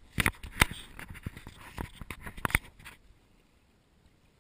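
Sharp knocks and scrapes right against the action camera's housing, four loud ones and many smaller ticks over the first three seconds, then stopping.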